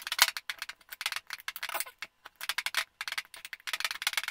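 Fork mashing garlic cloves in olive oil, its tines tapping rapidly against the bowl in quick runs of clicks, with a brief pause about two seconds in.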